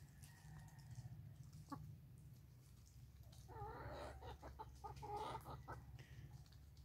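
Chickens clucking faintly while they feed: one short call about two seconds in, then a run of soft clucks around the middle.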